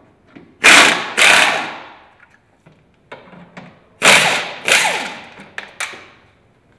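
Compressed air blown from a shop air hose in two pairs of short blasts, a few seconds apart. Each blast is a loud hiss that cuts in sharply and trails off, with a few light clicks in between.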